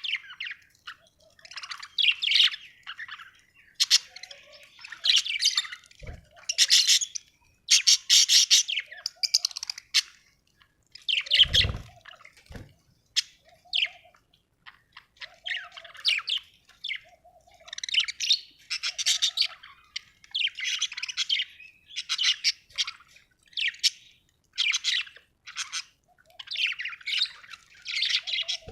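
Budgies chirping and chattering in quick, closely packed bursts of high warbling calls. There are a few short low thumps, the loudest near the middle.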